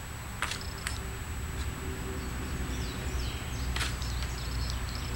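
A few sharp clicks from PVC fittings and a cement can being handled, over a steady low hum. Small birds chirp in the background.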